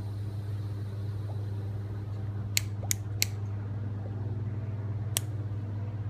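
A lighter clicking as it is struck to light a tobacco pipe: three quick sharp clicks a little past halfway, then one more near the end. Underneath runs the steady low hum of rooftop air-handling equipment.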